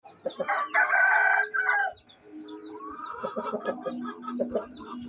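Aseel rooster crowing: one loud crow lasting about a second and a half, followed by quieter, shorter clucking calls.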